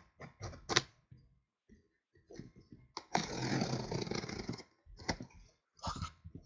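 A blade slicing along the packing tape of a sealed cardboard case, one long scraping cut of about a second and a half, with cardboard knocks and taps before and after as the flap is opened.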